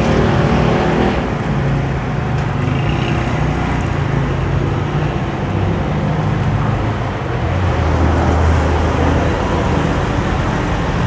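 Steady street traffic noise with an engine running close by, a continuous low rumble that grows a little stronger about eight seconds in.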